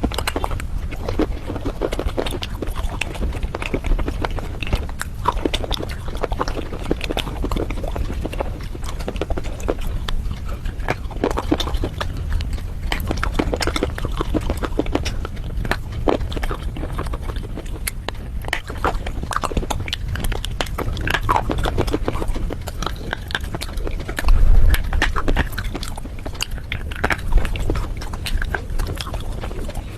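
Close-up crunching and chewing of red slate pieces and clay paste, a dense run of irregular crackles and crunches, with a louder low bump late on.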